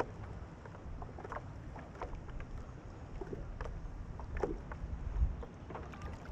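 Water lapping and dripping around a stand-up paddleboard drifting at rest: scattered small plops and drips over a low rumble.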